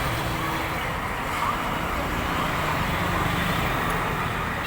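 Steady road traffic noise: vehicle engines and tyres running in a continuous wash, with a low hum underneath.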